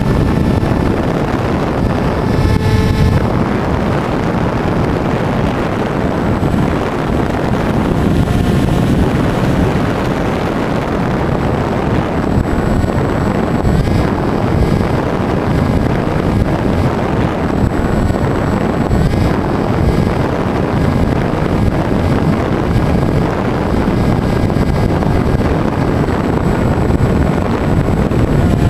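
Wind rushing over the onboard camera's microphone on a Bixler 2 foam RC plane in flight, with the electric motor and propeller running underneath as faint whining tones that come and go.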